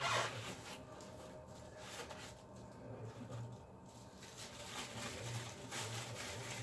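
Tissue paper rustling and crinkling in uneven bursts as a wrapped statue part is unwrapped by hand, opened by a short, sharp sound right at the start.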